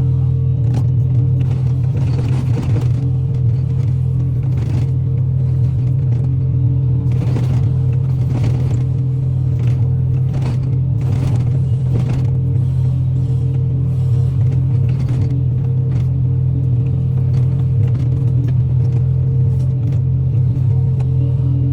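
Excavator's diesel engine running at a steady pitch, with scattered short knocks and scrapes.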